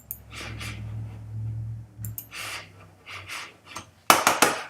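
Handling noise near the microphone: a low hum with scattered soft rustles, then a quick run of louder clicks near the end.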